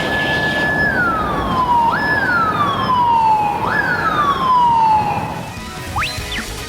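Police vehicle siren sounding three wails, each jumping up to a high note, holding it briefly, then sliding down. It cuts off a little over five seconds in, over low vehicle noise.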